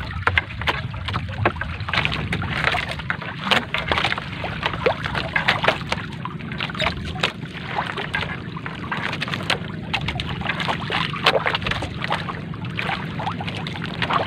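Wet three-ply gill net being hauled by hand over a wooden boat's gunwale: water splashing and dripping off the mesh, with many small sharp clicks and knocks, over a steady low rumble.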